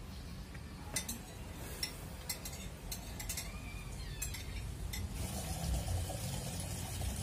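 Scattered small metal clicks and clinks as a bicycle crank bolt is handled and fitted by hand into the crank arm, over a low steady background rumble.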